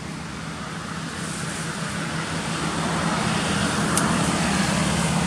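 A motor vehicle's engine running and growing steadily louder over a rushing noise, with one brief click about four seconds in.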